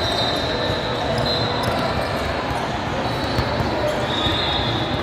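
Basketball game in a gym: a ball bouncing on the court over a steady hubbub of voices in the hall.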